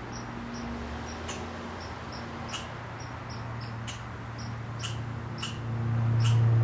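Outdoor ambience: short high chirps recurring every second or so over a steady low motor hum that swells louder near the end.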